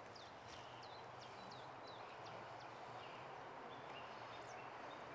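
Faint birdsong: a series of short, falling high chirps about half a second apart, then a few scattered short notes, over quiet outdoor background noise.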